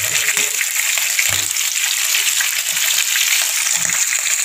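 Hot oil sizzling and crackling steadily in a frying pan as pieces of bird meat fry, with a couple of soft low knocks, about a second in and near the end.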